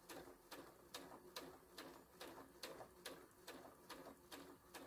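Janome DC2010 computerised sewing machine stitching slowly and quietly through fabric, its needle mechanism ticking about two and a half times a second.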